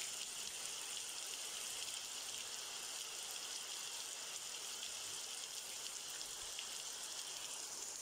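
Steady rain falling, an even hiss without breaks.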